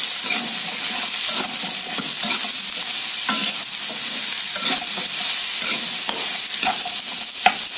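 Sliced chayote and carrot sizzling in hot oil in a wok, stir-fried with a metal slotted turner: a steady hiss of frying with the turner scraping and knocking against the pan about once a second.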